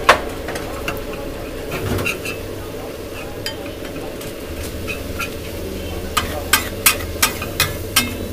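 Pav bhaji sizzling on a large flat tawa griddle as it is mashed and stirred with a steel masher, the metal scraping and clicking against the griddle. Near the end comes a run of sharp taps, about three a second.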